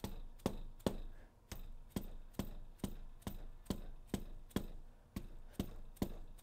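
Hammer tapping repeatedly on the fuel injectors in a VW 1.9 TDI diesel's cylinder head, a steady run of sharp taps a little over two a second. The taps seat the injectors in their crush washers so they won't leak.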